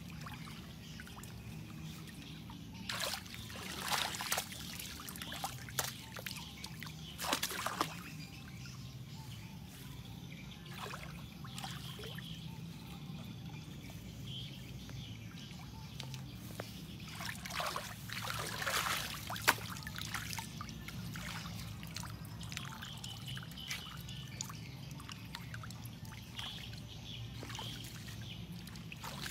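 Hands splashing and groping in shallow muddy water, with irregular bursts of sloshing and trickling, the heaviest a few seconds in and again past the middle.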